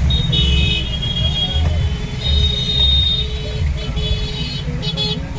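Low, steady rumble inside a Mahindra Thar's cabin as it moves slowly through traffic, with high, steady tones coming and going over it.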